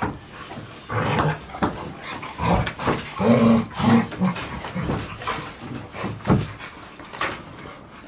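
Golden retriever puppies vocalizing in short bursts, with brief whimpering calls clustered around the middle, amid panting and scattered knocks.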